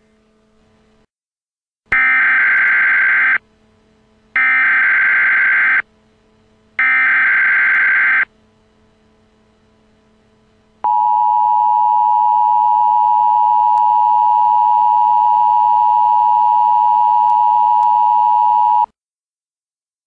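Three short bursts of emergency-alert data tones (SAME header bursts), each about a second and a half long, followed about halfway through by the two-tone emergency alert attention signal, held steadily for about eight seconds and then cut off.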